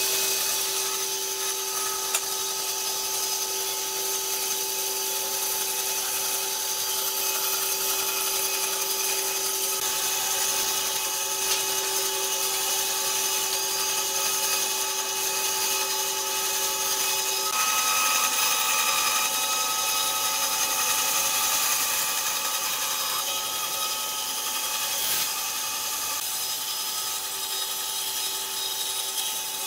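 Bandsaw running and cutting a curve through a glued-up pine panel: a steady hiss of the blade in the wood over the hum of the machine. The tone of the hum shifts a little over halfway through.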